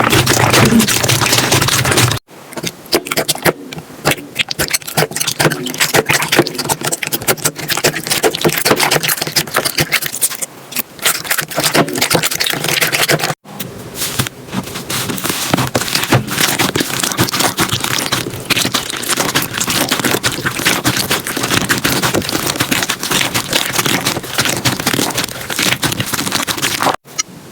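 Slime being squeezed, pressed and stretched by hand, making dense crackling, popping and squelching clicks. It breaks off abruptly three times where one clip cuts to the next: about two seconds in, about halfway, and near the end.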